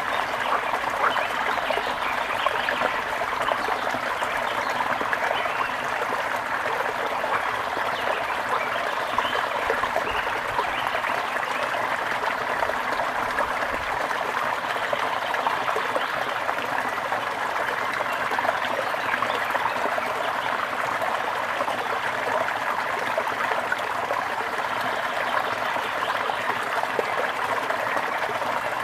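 Gentle river flowing steadily: a continuous rush of water with fine splashing.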